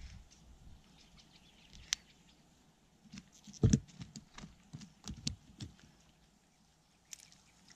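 Scattered light taps and rustles of hands working small fish loose from a cast net on dry ground. The taps come as a sharp one about two seconds in and a cluster of stronger knocks in the middle.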